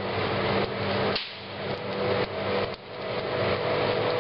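Blacksmith's hammer striking stainless steel, a few separate blows over a steady roar with a low hum.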